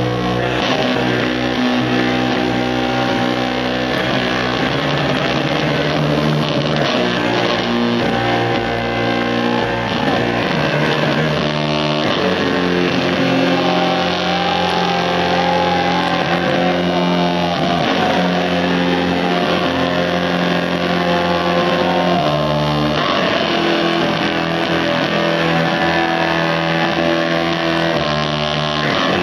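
A live band plays loud instrumental rock, with the electric bass guitar prominent and steady throughout, heard as an audience recording.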